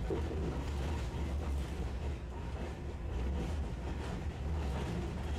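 Steady low rumble inside a Tosaden streetcar, the car's running noise heard from the passenger compartment.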